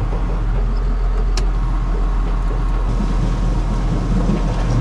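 John Deere 7530 tractor's six-cylinder diesel engine running steadily, heard from inside the cab, with a single sharp click about one and a half seconds in.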